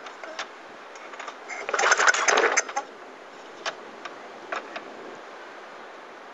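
Murray lawn mower engine being pull-started, turning over with a fast rattle for about a second without catching, then a few single clicks.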